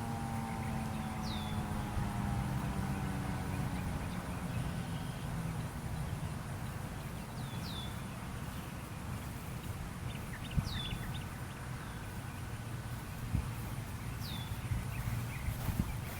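Federal Signal 2001-SRNB siren's falling tones fading out in the first few seconds as it winds down. A bird then gives four short high calls, each sliding downward, spaced a few seconds apart, over a steady low rumble.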